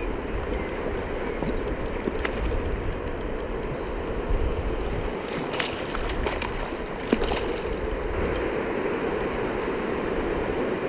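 Shallow river water rushing steadily over a weir and around the wader, with wind rumbling on the microphone in the first half. A few brief splashes and knocks come through as the hooked trout is drawn into the landing net, the sharpest about seven seconds in.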